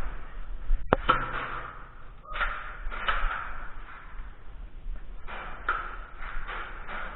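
A single sharp click about a second in, from a Nerf blaster, with irregular rustling and scuffing around it.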